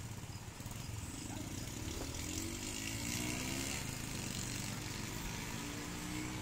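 Street traffic: a motor vehicle engine running past, with a pitched engine note rising and falling, over a steady low rumble.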